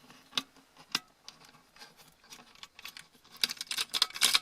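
Small metal parts of a disassembled laptop hard drive being handled: a few separate light clicks, then a quick run of clicking and rattling near the end.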